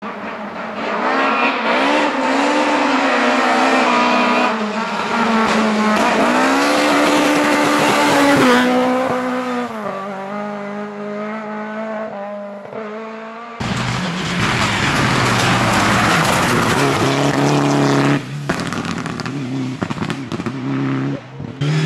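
A Lada (VAZ) rally car's engine revving hard, its pitch climbing and dropping through several gear changes, then fading as the car pulls away. About two-thirds through, the sound switches abruptly to a second rally car running loud at full throttle.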